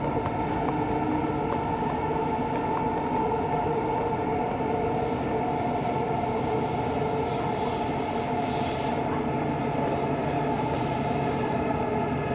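Inside a subway car while it runs: a steady rumble of wheels on the track with a steady whine of several tones over it.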